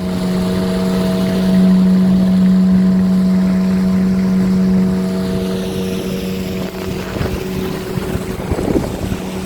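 Inboard engine of a motorized wooden sampan running steadily under way, a constant drone over the rush of water and wind.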